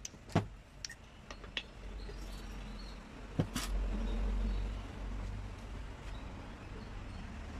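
Light clicks and taps of steel piston rings being handled, set on the workbench and worked at the cylinder bore of an engine block: several small clicks early on and a pair near the middle, over a steady low hum.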